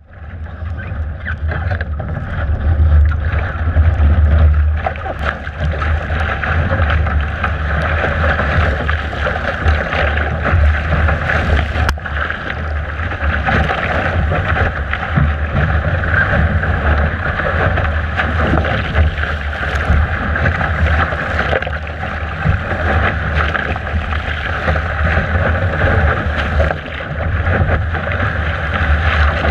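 Heavy wind buffeting the microphone over the rush of water and spray along a Laser sailing dinghy's hull as it planes and surfs downwind through waves in 22–29 knot winds. Steady and loud, fading in quickly at the start.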